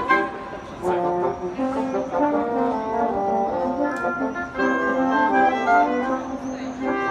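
A wind ensemble of French horns and woodwinds, among them clarinets and a bassoon, playing classical music in slow, held chords, with a new phrase starting about a second in.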